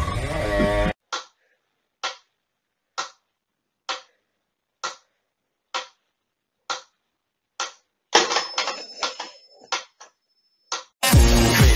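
Short, sharp ticks, evenly spaced about one a second, eight in a row with silence between. About eight seconds in they give way to a brief noisy rustle with a thin, steady high whistle and a couple more ticks.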